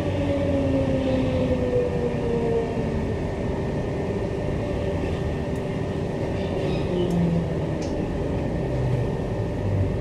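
Queensland Rail EMU electric train heard from inside the passenger car as it slows into a station: a steady rumble of wheels and running gear, with a whine that falls in pitch over the first few seconds. A few faint clicks follow later.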